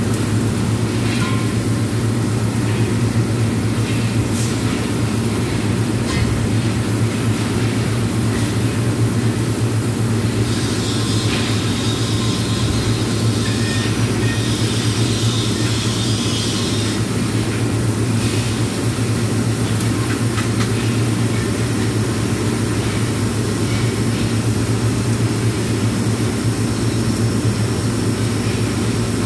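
Steady, loud drone of workshop machinery with a strong constant low hum. A higher hissing noise sits over it from about ten to seventeen seconds in.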